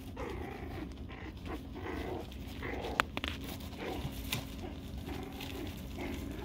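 Four-week-old puppies wrestling in play and making faint trilling little growls and whimpers, with one sharp tick about halfway through.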